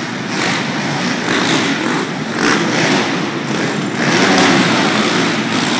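Motocross bikes racing around an indoor dirt track, their engines revving up and easing off over and over. The sound is heard inside an enclosed arena.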